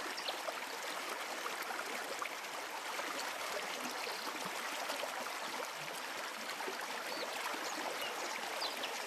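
River water flowing steadily over and around rocks, an even rushing sound.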